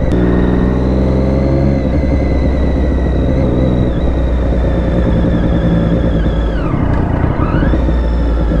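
Triumph Daytona 675's three-cylinder engine running steadily under way on a motorbike. About seven seconds in, the revs drop sharply and then climb back up.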